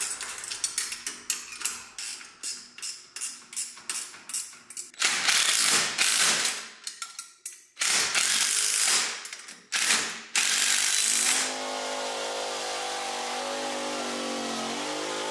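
Ratchet wrench clicking in quick short strokes as the lift-point bolts are tightened onto the dethatcher frame, followed by several longer runs of fast ratcheting. A steady hum takes over near the end.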